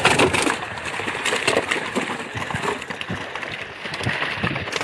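Water splashing and sloshing in a plastic basin of freshly caught batfish, loudest in the first second.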